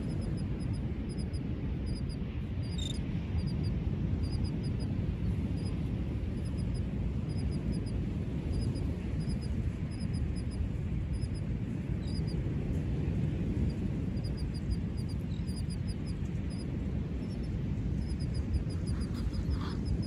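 Steady low rumble of wind and surf, with faint high bird chirps repeating in quick little clusters throughout and a gull calling once near the end.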